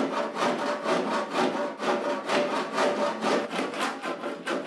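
Hand saw cutting through a wooden board in quick, even back-and-forth strokes, about three a second.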